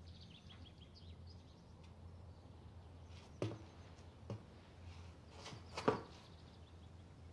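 A steady low hum with a few sharp knocks and rustles; the loudest knock comes about six seconds in.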